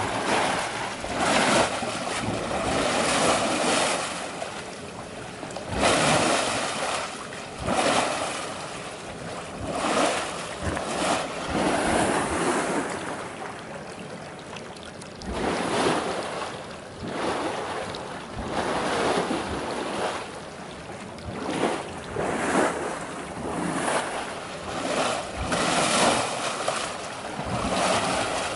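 Wastewater churning and splashing in the tanks of an activated-sludge treatment plant, stirred up by aeration in the sequencing batch reactors. It is a steady rush of water that swells and falls every second or two.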